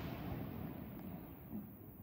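The dying tail of a firework burst: the rumble and crackle after the bangs fade away steadily, with a faint pop about a second in.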